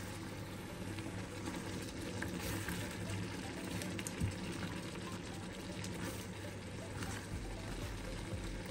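Coconut curry sauce simmering and bubbling in an enamelled pan, with a silicone spatula stirring through it. One soft knock comes about four seconds in.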